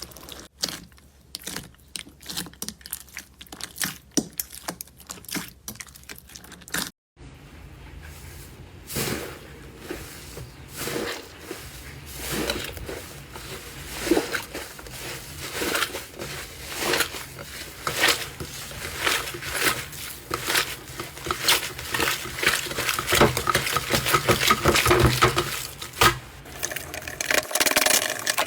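Slime being handled by hand, crackling and popping. First comes a run of sharp separate clicks. After a brief break about seven seconds in, the crackling is denser and grows louder toward the end.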